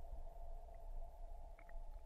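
Muffled underwater sound picked up by a GoPro inside its waterproof housing: a low steady rumble and hum, with two faint clicks about one and a half seconds in.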